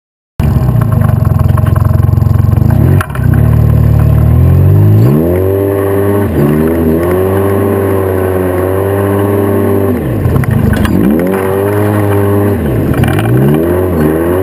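Turbocharged vehicle engine accelerating hard, its pitch climbing and then dropping at each of several gear changes.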